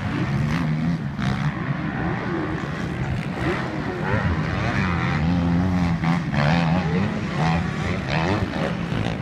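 Motocross bikes riding the track, their engine pitch rising and falling over and over as the riders work the throttle.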